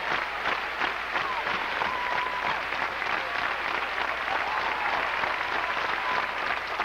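Large basketball crowd in an arena clapping and cheering during play, a steady din of applause and voices.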